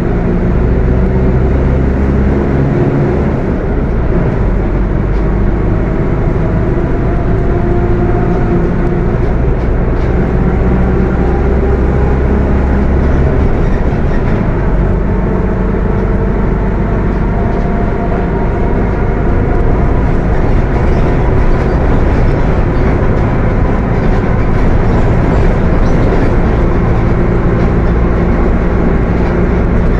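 Mercedes-Benz OF 1721 bus under way, its diesel engine running with the transmission growling loudly. A pitched whine sits over a low rumble and drifts up and down as the bus speeds up and slows.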